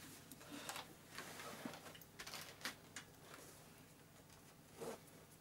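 Faint rustling and small clicks of an HJC full-face motorcycle helmet being pulled on over the head and its chin strap fastened, with a slightly louder rustle near the end.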